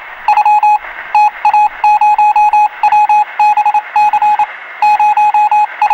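Loud electric bell-style ringing: one shrill pitch in rapid pulses of about eight a second, in short runs with brief breaks.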